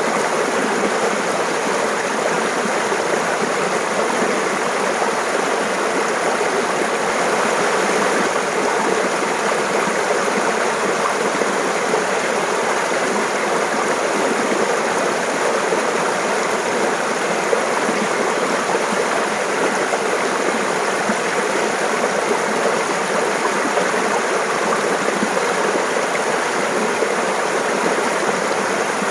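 Mountain stream babbling and splashing steadily over rocks, an even rush of water.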